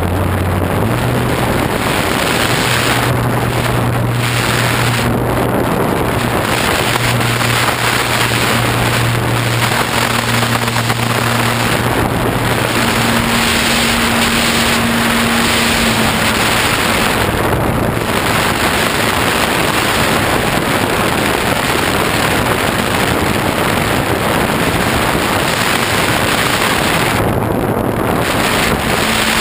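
Electric motor and propeller of a FunCub RC plane heard from an onboard camera: a steady low drone whose pitch rises in the first second as the throttle comes up for take-off, under a loud rush of air over the microphone.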